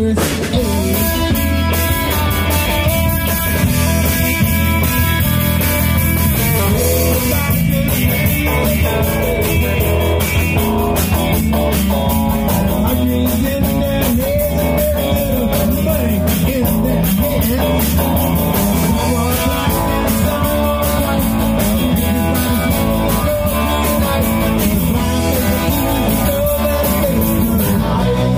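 Live soul-rock and blues band playing a rock number: electric guitars and drum kit, with a lead singer singing into the microphone.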